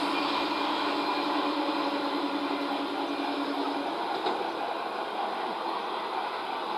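Electric multiple-unit local train running on the track and moving away, its rumble slowly fading. A steady low hum sounds along with it and stops about four seconds in.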